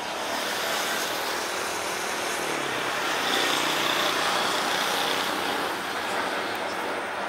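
Boeing 737 jet engines at takeoff thrust as the airliner lifts off and climbs: a steady, loud roar, with a high whine standing out for a couple of seconds in the middle.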